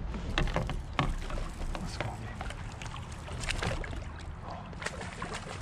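Water splashing and sloshing around a fishing kayak, in a string of short, irregular splashes and knocks over a steady low rumble.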